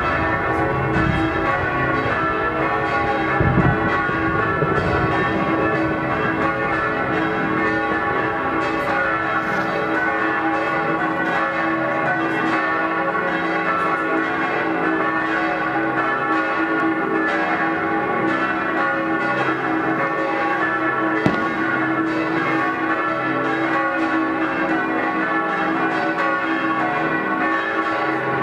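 Several church bells ringing together in a steady, dense peal, with a few low thuds near the start and one sharp crack later on.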